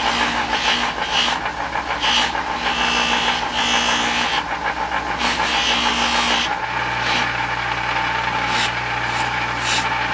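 Bench buffer running with a cloth buffing wheel, a straight-razor scale with a brass wedge pressed against it in repeated passes: each pass is a rushing hiss over the steady motor hum. About two-thirds through the hum changes, and after that the wheel is touched only briefly a few times.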